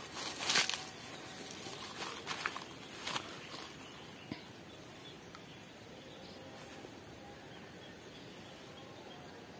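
A few short rustles and brushes of grass during the first three seconds, then quiet outdoor ambience with faint high calls, likely insects, in the background.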